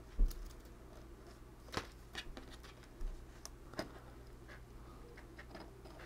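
Faint handling sounds of jumper wires and an Arduino Uno board: a soft knock just after the start, then a few scattered light clicks and taps as the wire ends are fitted into the header pins.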